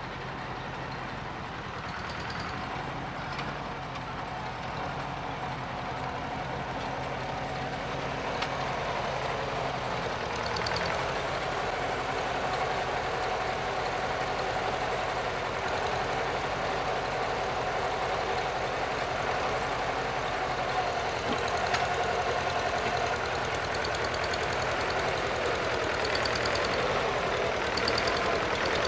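Farmall Super C tractor's four-cylinder gasoline engine running steadily under load as it drags loose dirt with a rear blade, growing louder as the tractor comes closer.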